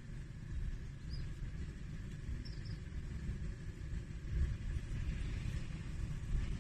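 Uneven low rumble of wind buffeting a phone microphone outdoors, with a few faint high chirps about a second in and again around two and a half seconds.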